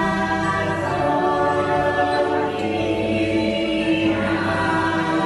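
Choral music: a choir singing long held chords that change every second or two.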